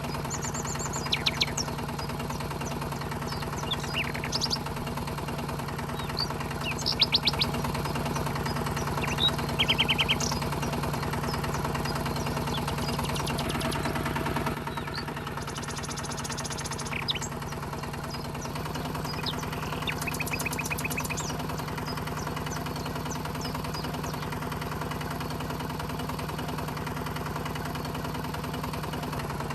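Small motor of a DIY miniature tractor running steadily.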